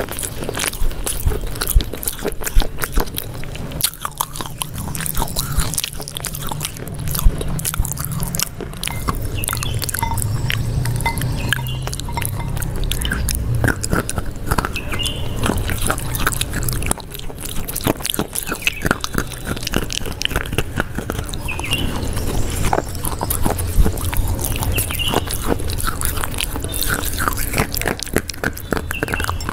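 Close-miked biting and chewing of a crisp snack: many small sharp crunches and mouth clicks, one after another, over a low hum.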